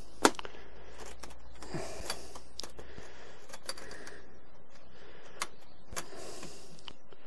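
Metal door latches of an insulated sheet-metal smoker being fastened shut: one sharp click just after the start, then lighter clicks and rattles as the lower latch is worked, with two clearer clicks near the end.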